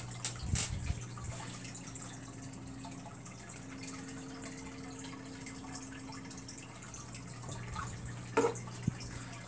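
Steady trickle of water from an aquarium filter over a low steady hum, with a few handling knocks near the start and one short knock about a second before the end.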